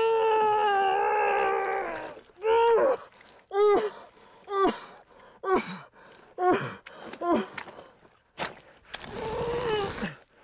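A wailing voice: one long drawn-out cry that sags slightly in pitch, then about six short rising-and-falling cries roughly a second apart, like sobs, then a long breathy gasp near the end.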